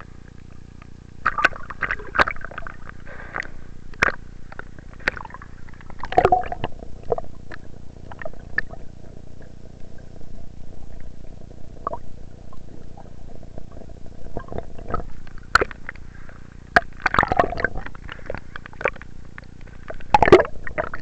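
Water sloshing and gurgling right at the microphone, with irregular splashes and low rumbling as the phone is held at the water's surface.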